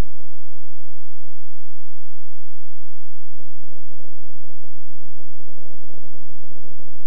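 Electrical hum and hiss with faint crackles, no music or speech; a denser low crackling noise joins about three seconds in.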